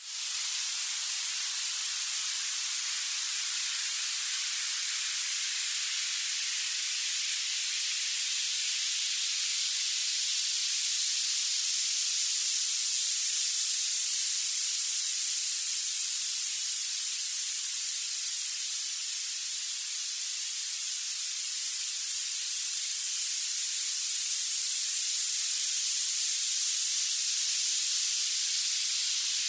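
Violet noise: a steady synthetic hiss whose energy climbs toward the highest frequencies, with no bass at all.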